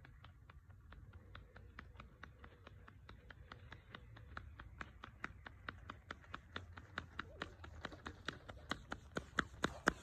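A rapid, even run of light clicks or taps, about five a second, growing steadily louder.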